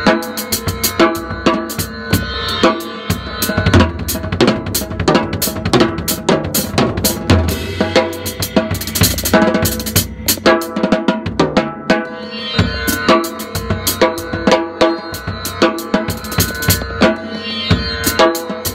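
Acoustic drum kit played with kick, snare and cymbals over pitched sitar tones from a Roland SPD-30 Octapad percussion pad.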